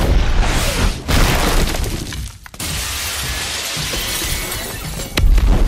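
Armoured suits crashing through a large glass wall: a sudden heavy crash, glass shattering and raining down, and another heavy impact near the end.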